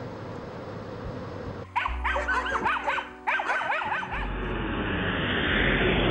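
Steady road noise inside a moving car. About two seconds in, several dogs bark and yelp in short, sharp calls for about two seconds. From about four seconds in a rush of noise rises steadily.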